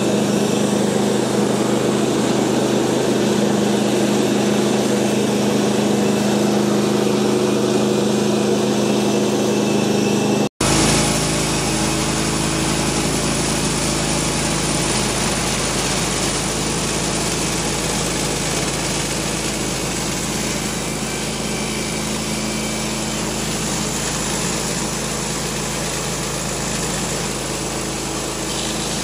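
Portable bandsaw sawmill's small gas engine running steadily while milling cedar. The sound cuts out abruptly about ten seconds in and comes straight back rougher and fuller, with more low rumble and hiss.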